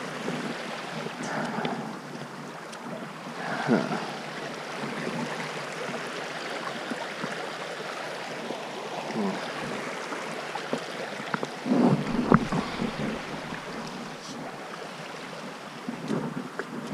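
Shallow stream running over rocks, a steady rushing wash, mixed with wind on the microphone. A few louder knocks and rustles come about twelve seconds in.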